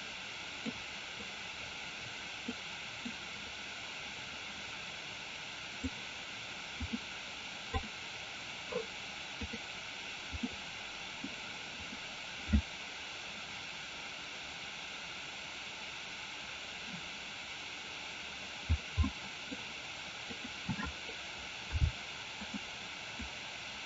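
Steady hiss from a recording microphone, with about a dozen soft, irregular knocks scattered through it, the loudest about halfway in and a cluster near the end.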